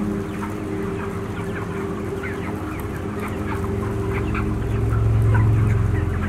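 A crowded flock of broiler chickens in a shed, many birds giving short overlapping peeps and chirps, over a low steady drone.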